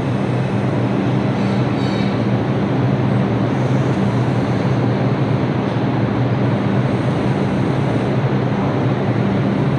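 New York City subway train running at speed: a steady, loud rumble of wheels on rail with a constant low hum.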